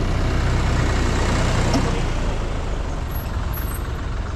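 Vintage tractor engines running on the road, a steady low engine note that eases slightly after about two seconds.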